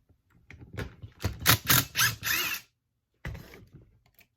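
Clicking, clattering and scraping of small plastic and metal parts and tools being handled while a STIHL BG50 handheld blower is taken apart, loudest about a second and a half in, with one more knock a little after three seconds.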